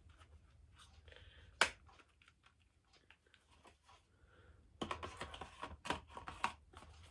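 Plastic clicks and rustling from a CD case and its booklet being handled. There is one sharp click a little under two seconds in, then a quick run of clicks and rustles in the second half.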